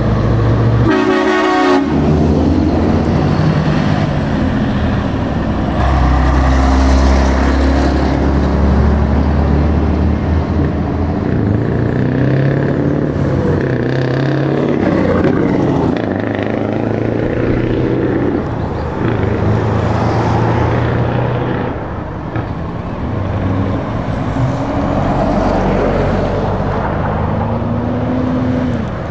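Heavy Scania trucks driving past one after another with their diesel engines running. Among them is a Scania 164L 580, which has a V8. A truck horn sounds once, briefly, about a second in.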